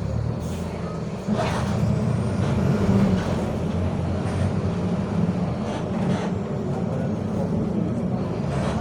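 Mercedes-Benz OF 1721 Bluetec 5 bus running, its OM924LA 4.8-litre four-cylinder diesel working with the differential growling. It gets louder a little over a second in.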